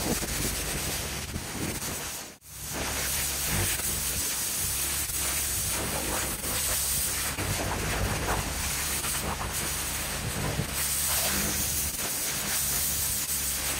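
Pressure washer lance spraying water onto stone paving slabs: a steady hissing spray with a low steady hum underneath. There is a brief break about two seconds in.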